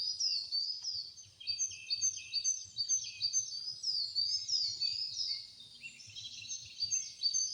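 Chorus of birds chirping: many quick, overlapping high chirps that each slide downward in pitch, repeating steadily.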